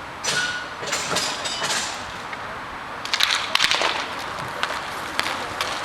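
Hockey play: sticks clacking against the puck and each other, with a quick run of sharp clacks about three seconds in, over the steady scrape of skates on the rink surface.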